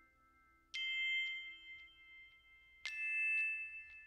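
Two bright bell-like dings, one about a second in and another about three seconds in, each ringing on for a while, with faint small clicks between them.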